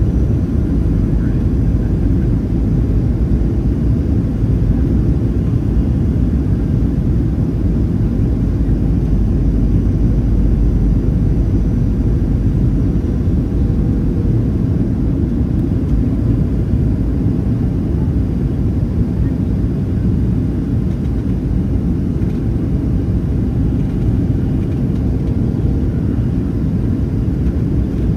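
Steady low rumble inside the cabin of a Boeing 737-700, the noise of its engines and the airframe carrying through.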